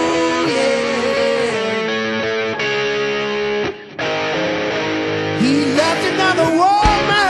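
Blues-rock band playing an instrumental passage led by electric guitar, with notes that glide in pitch near the end. There is a short break in the sound about halfway through.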